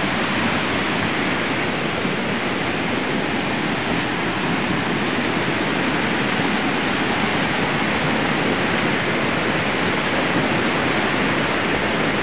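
Steady rushing noise of a river in heavy flood, an even, unbroken sound of fast-moving water.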